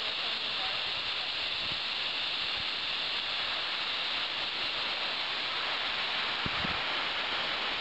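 Waterfall plunging down a cliff into a pool below: a steady, unbroken rushing noise. A few low thumps come near the end.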